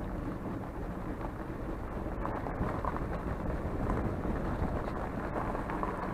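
Steady low rumble of wind buffeting the microphone, with a vehicle running underneath.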